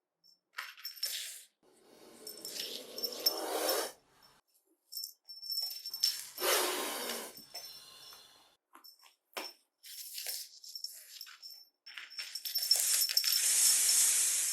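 Snake hissing sound effects: several bursts of hissing with short clicks and rustles between them. The longest and loudest hiss runs from about three-quarters of the way through to the end.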